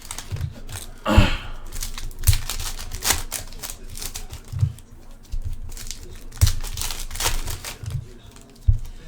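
Trading-card pack wrappers crinkling and tearing, with irregular clicks, taps and soft thumps as cards are handled.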